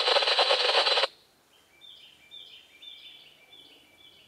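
Loud scanner-radio hiss that cuts off suddenly about a second in. Then a small bird sings a run of short chirps that step down in pitch, repeated several times.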